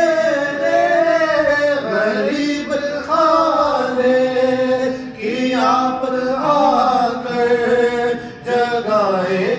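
A man singing an Urdu naat unaccompanied into a microphone, drawing out long notes that bend up and down, with short breaths between phrases.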